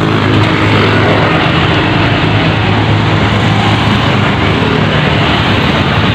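An engine running steadily, an even drone that doesn't change.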